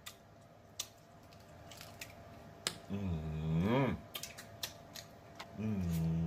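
Eating snow crab: sharp clicks and smacks of the mouth and shell, with two hummed "mmm" sounds of enjoyment, the first about three seconds in and the second near the end.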